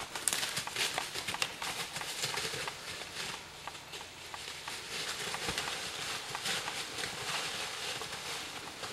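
Irregular crackling and crunching of steps through dry fallen leaves.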